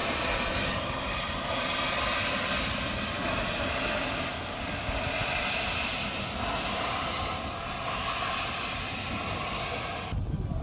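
Saxon IV K narrow-gauge steam locomotive letting off a loud, steady hiss of steam while standing at the coaling stage and moving slowly. The hiss cuts off suddenly near the end.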